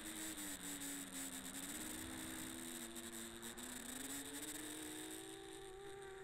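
Quadcopter's EMAX Eco 2306 1700 KV brushless motors spinning the props in flight, a buzzing whine whose pitch sags for a couple of seconds, then climbs steadily as throttle comes up. Steady high electrical whine and crackling hiss sit over it.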